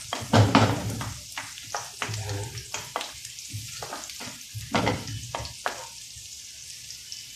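Chopped garlic sizzling in butter and olive oil in a frying pan, with a spatula stirring and scraping against the pan in irregular strokes. The loudest strokes come about half a second in and again near five seconds.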